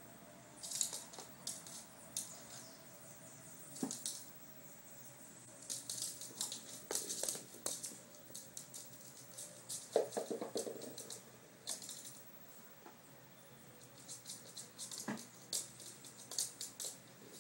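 A chihuahua scampering, its claws clicking and scraping on a hard floor in short irregular bursts, with a brief pitched sound about ten seconds in.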